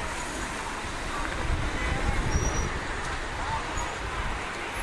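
Busy city street ambience: a steady rumble of road traffic with the voices of passers-by mixed in.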